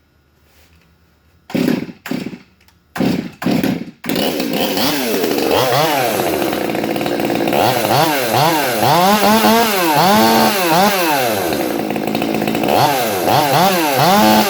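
Freshly rebuilt Stihl MS 200 T top-handle two-stroke chainsaw starting. It gives four short bursts, then catches about four seconds in and runs, revved up and down again and again.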